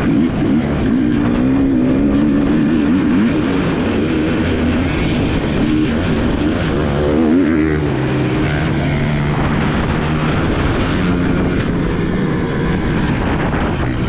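Dirt bike engines running and revving, the pitch rising and falling with the throttle.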